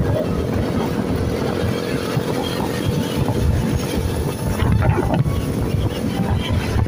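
Wind buffeting the microphone over a motorcycle's engine running steadily and tyre noise while riding along a road.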